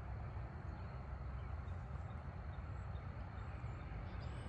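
Steady outdoor background noise with a low rumble underneath and a few faint, high-pitched chirps.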